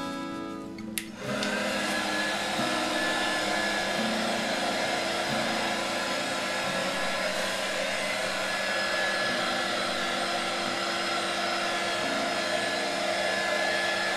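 Electric heat gun switched on with a click about a second in, then blowing steadily, a rushing hiss with a high whine in it. It is hot air being played over a wet acrylic pour with silicone, which brings up bubbles and cells in the paint.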